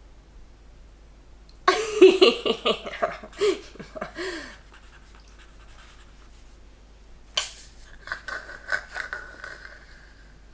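A person's wordless vocal sounds: a run of pitched cries whose pitch slides downward, then after a pause a sudden start and a breathy, hissing stretch.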